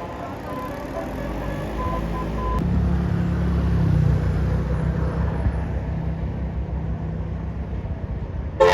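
Tour bus's engine running, a low rumble that grows louder over the first few seconds and then holds steady. Right at the end a multi-note telolet horn cuts in.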